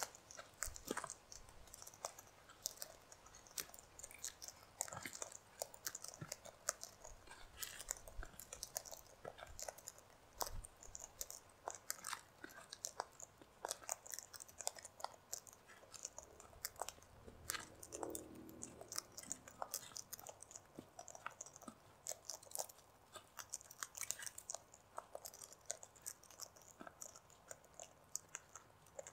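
Sulphur-crested cockatoos crunching seed in their beaks: a continuous, irregular patter of small sharp cracks and clicks.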